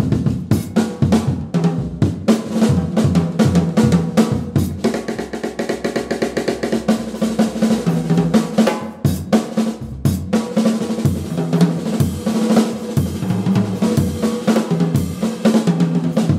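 Jazz trio of acoustic piano, upright bass and drum kit playing, with the drums loudest: rapid snare strokes, bass drum and cymbal hits over the bass and piano.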